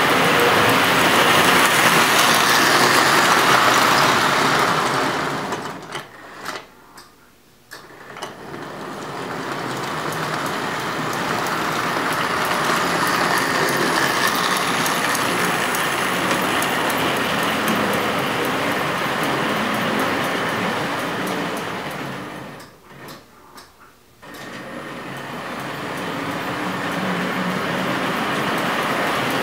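American Flyer No. 350 Royal Blue S-gauge locomotive and its cars running on the layout track: a steady rumble and whir of wheels and motor that swells as the train passes close and drops away twice as it goes round the loop. The locomotive has just had a full mechanical service and cleaning, and it now runs.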